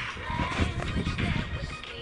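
Background music, muffled and mixed with rough, noisy outdoor sound.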